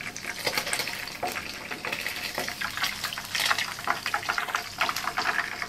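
Hot oil sizzling and crackling around pieces of ikan kembung (short mackerel) frying in a pan, a steady hiss dotted with many small pops.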